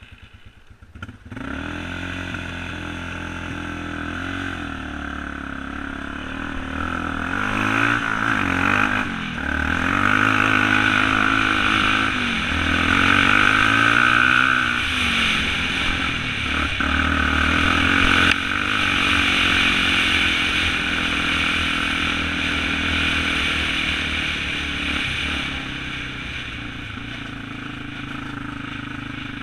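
Yamaha ATV engine starting about a second in, then running as the quad is ridden off, its pitch rising and falling repeatedly with the throttle before settling into a steadier run.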